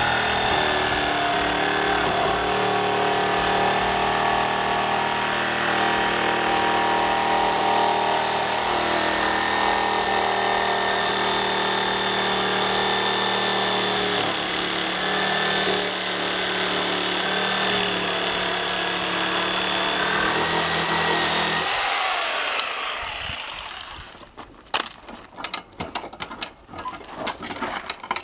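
Corded electric jigsaw running steadily while cutting through a steamed Douglas fir board. It winds down about 22 seconds in, and a few sharp knocks and clicks follow near the end.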